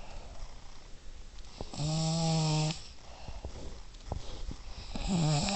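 A sleeping child of about twelve snoring: one long, pitched snore about two seconds in and the next one starting near the end, roughly three seconds apart, with quieter breathing between.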